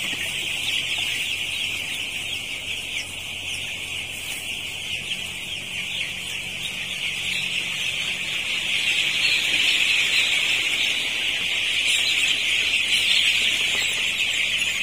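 Continuous shrill peeping of a large flock of nine-day-old broiler chicks, many calls blending into one dense chorus, louder in the second half.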